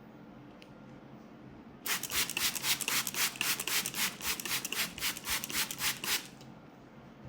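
Hands rubbing quickly back and forth in a head massage, about five strokes a second, starting about two seconds in and stopping about four seconds later.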